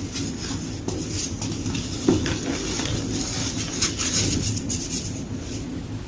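A block of gym chalk being crushed and crumbled: a steady crunching full of small irregular cracks, with a sharper snap about two seconds in.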